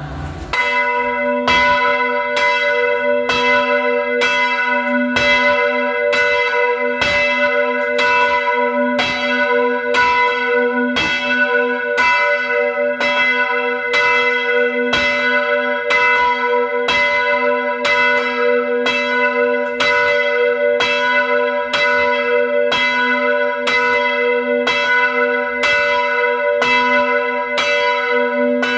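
Gia Định Church's bell ringing for the Sunday early-morning call, struck in quick, even strokes about three every two seconds. Each stroke's hum carries over into the next.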